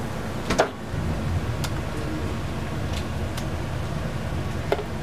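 An under-counter fridge door knocks shut about half a second in, over a steady low kitchen hum. A few light clicks follow, ending with a spoon tapping on a plate as a potato pancake is topped with sour cream.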